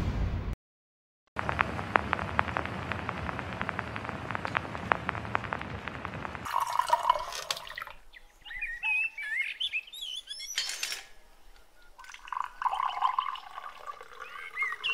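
Tea being poured, from a tea urn's tap into a steel mug and then in a stream into a glass, with small birds chirping between the pours. Before the pouring, a few seconds of dense crackling hiss.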